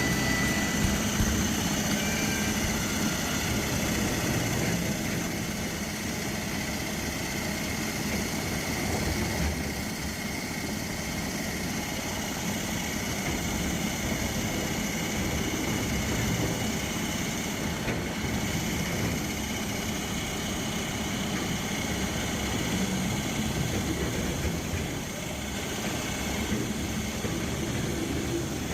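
Heavy machinery engine running steadily.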